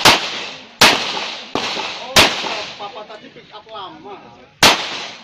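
Glock pistol firing five shots in a string: four about three-quarters of a second apart, then a pause of about two and a half seconds before the fifth. Each shot cracks sharply and leaves a short echo.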